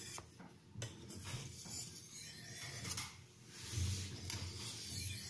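A carbon-steel knife edge stroked across a translucent Arkansas oilstone: a repeated scraping hiss, stroke after stroke with short breaks between them. This is the final fine stone, raising a micro bevel.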